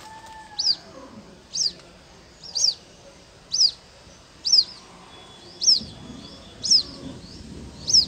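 A downy water-bird chick peeping: a short, high, sharp call repeated evenly about once a second, eight times.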